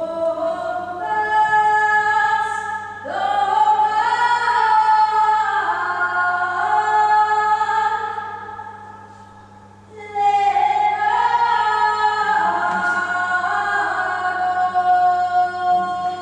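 Layered voices singing held chords in close harmony, the notes changing pitch together. There are two phrases: the first fades out about ten seconds in and the second starts right after. A steady low hum runs underneath.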